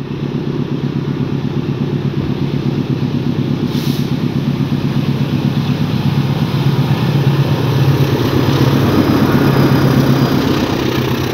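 A CC206 diesel-electric locomotive's engine working at full throttle as it pulls away with a container freight train, a steady deep engine note growing louder as the locomotive approaches and passes close by.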